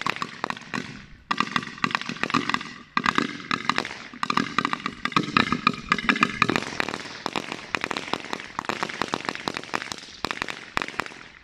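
A 100-shot firecracker belt going off under an upturned paint can: a rapid, irregular string of sharp bangs, several a second, with two short breaks in the first three seconds.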